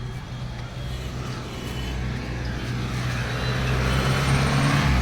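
A motor vehicle engine running with a steady low hum, growing gradually louder.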